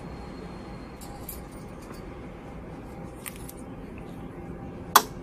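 A few light metallic clicks of hand tools being handled, with one sharp, louder click about five seconds in, over steady low background noise.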